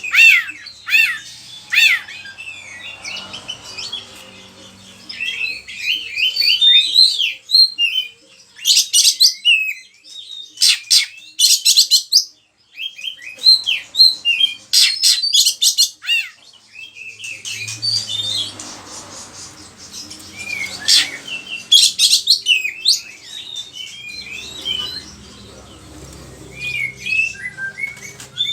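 Oriental magpie-robin (kacer) singing in full voice, a fast, varied run of sliding whistles, chirps and harsh rattling notes that make up its mimicked repertoire. The song breaks off briefly about twelve seconds in.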